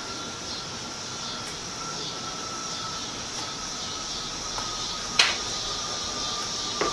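Steaks searing over hot charcoal on a grill grate, a steady sizzle, with one sharp click about five seconds in.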